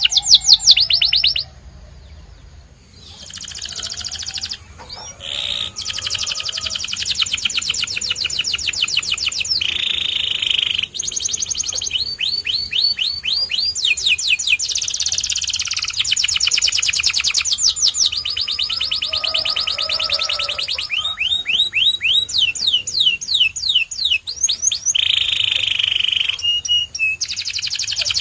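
Domestic canary singing a long song of rapid trills and rolls, each phrase a fast run of identical sweeping notes, changing from one phrase to the next, with a short break about two seconds in.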